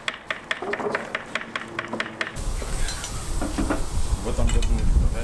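Knife strokes on a cutting board, about four a second; then, after a cut a little over two seconds in, sizzling from a steaming cauldron on a wood stove, stirred with a metal ladle, over a low rumble.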